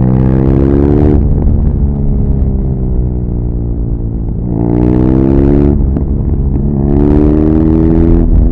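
BMW R nineT Pure's air- and oil-cooled boxer twin under hard acceleration. The engine note climbs in pitch and cuts off abruptly about a second in, then sinks slowly while the throttle is eased. It then pulls up in pitch twice more, each pull ending in a sudden drop, the second near the end.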